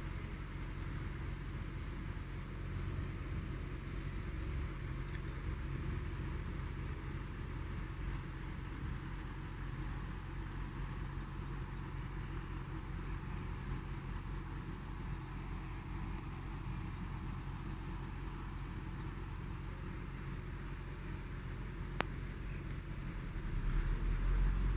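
Steady low mechanical hum with a rumble, like a machine running continuously. A single sharp click comes near the end, and the rumble grows louder just before it stops.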